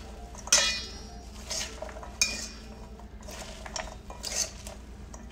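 Two metal forks tossing chopped salad in a stainless steel mixing bowl, scraping and clinking against the bowl. A sharp ringing clink comes about half a second in and another just after two seconds, with softer scraping between.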